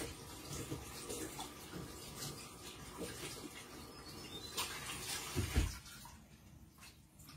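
Water running and splashing, as at a kitchen sink, stopping about six seconds in, with a thump just before it ends.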